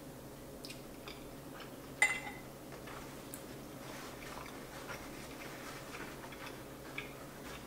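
Quiet eating sounds from chewing a mouthful of pasta, with a single sharp clink about two seconds in as a metal fork is set down against a ceramic plate.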